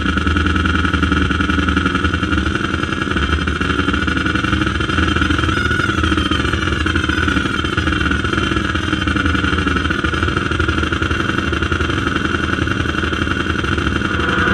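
Loud live noise music from circuit-bent and junk electronics: a dense, steady droning rumble with a harsh mid-range tone, and a pitch that sweeps downward about halfway through.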